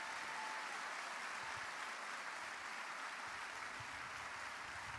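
Large indoor audience applauding steadily: a continuous wash of many hands clapping.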